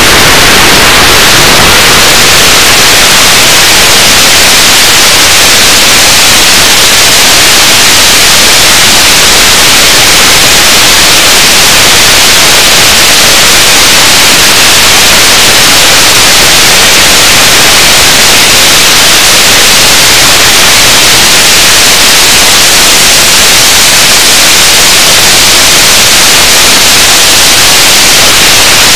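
Loud, steady hiss of static noise, even and unbroken, with no motor tone or voice to be heard in it.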